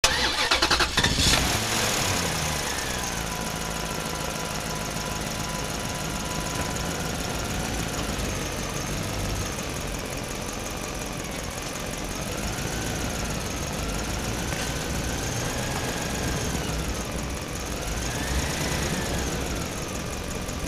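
A steady engine-like running sound: a low rumble with a thin whine above it that slowly rises and falls in pitch. There is a rapid clicking in the first second or so.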